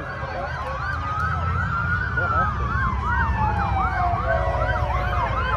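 Emergency-vehicle sirens: one yelping rapidly up and down, about three sweeps a second, while another long tone falls slowly in pitch, over a low rumble.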